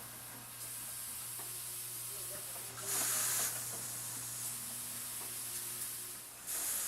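Automated valve assembly machine running: a steady low hum with short bursts of compressed-air hiss from its pneumatic actuators, one about three seconds in and another near the end.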